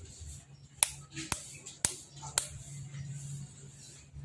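A KOYO 6301 sealed ball bearing being tapped into a motorcycle front wheel hub to seat it further: four sharp knocks about half a second apart in the first half, then a low steady hum under the second half.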